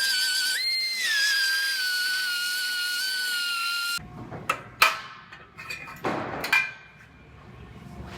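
A power tool running with a steady high-pitched whine that jumps up in pitch about half a second in and then sags back down, as under load, stopping abruptly about four seconds in. Several sharp knocks and clanks of metal tools or parts follow.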